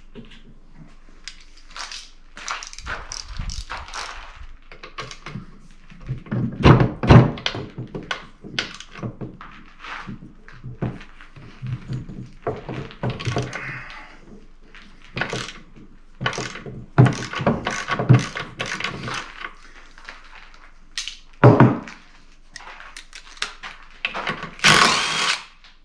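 Irregular metal knocks, clunks and scraping as a truck transfer case is pried and worked apart by hand, with the loudest knocks about seven seconds in and again around seventeen seconds, and a longer rasping sound near the end.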